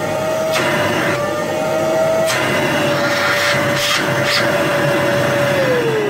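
Electrolux Super Cyclone vacuum cleaner running after reassembly: a steady motor whine that wavers a little in pitch, with short rushes of air as a hand over the intake is sucked at and pulled away. Near the end it is switched off and the whine falls as the motor spins down.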